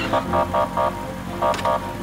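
Police car siren sounding short, evenly spaced electronic beeps: four quick ones, a pause, then two more, over a low steady hum.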